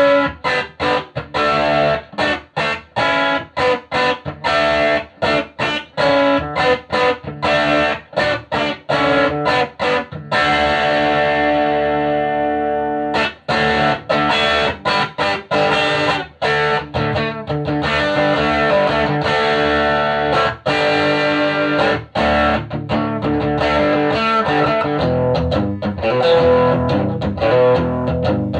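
Electric guitar played through a 1965 WEM Control ER15 valve amplifier head, which has push-pull EL84 output valves and ECC83 preamp valves. Short, clipped chords come about two or three a second, and about ten seconds in one chord is left to ring and fade. After that the playing turns fuller and more continuous.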